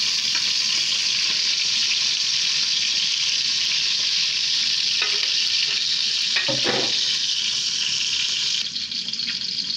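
Cod heads frying in hot peanut oil in a pot: a loud, steady sizzle. Near the end the sizzle abruptly quietens as ground peanuts are poured into the oil.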